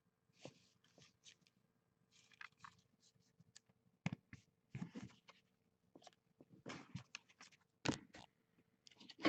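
Trading cards and their packaging being handled: scattered short crinkles and clicks, with a faint steady hum underneath.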